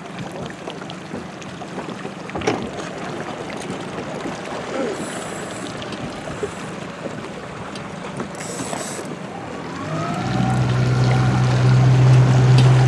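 Wind and water noise from a small boat on open water, a steady rushing hiss. About ten seconds in, a steady low hum comes in and the sound grows louder.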